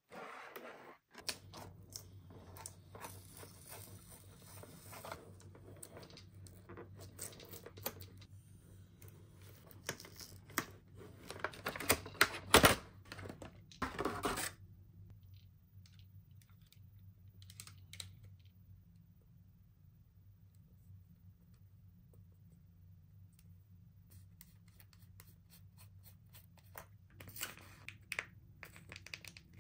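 Clear plastic toy packaging being handled, crinkled and torn open, with a cluster of louder crackles and rips about twelve to fourteen seconds in, over a steady low hum. It then goes mostly quiet, and near the end there are a few clicks as the cap and seal of a small plastic bubble-solution bottle are worked open.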